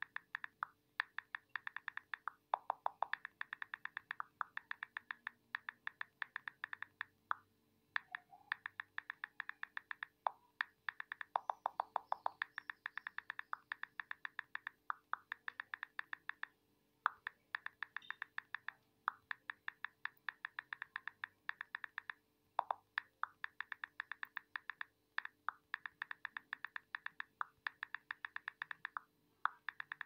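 iPhone on-screen keyboard key clicks in fast typing runs, short sharp ticks at about eight a second, broken by brief pauses every few seconds.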